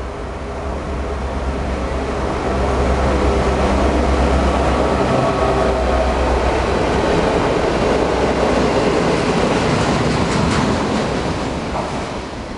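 Two EMD diesel-electric locomotives, a G26CU leading a G16, hauling a freight train past at close range. A deep engine drone builds as they approach. The wheels and rails then clatter and click as the train goes by, and the sound fades near the end.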